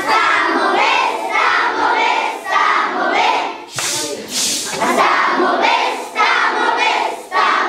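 Many children's voices singing and chanting together in unison, with a loud shouted burst about four seconds in.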